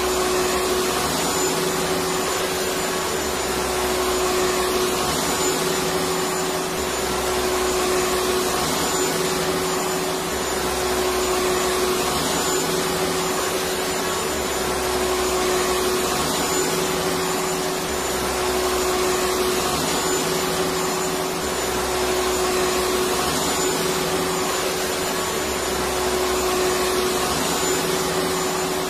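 Electric vacuum cleaner running steadily: a constant rushing of air over a steady motor hum.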